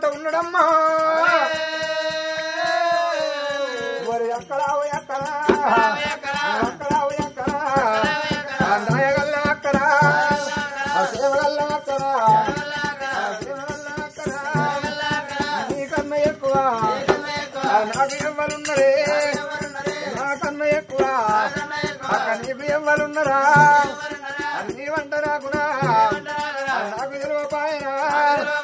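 Telangana Oggu Katha folk music: a long sung note gliding down in the first four seconds, then singing over a fast, even beat of a hand drum and jingling ankle bells.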